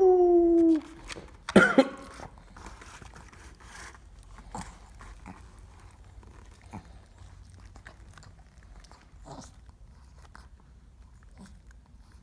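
A long, slightly falling 'aww'-like call right at the start and a second loud vocal burst about a second and a half later. Then a chihuahua chewing a treat: faint, irregular clicks and crunches.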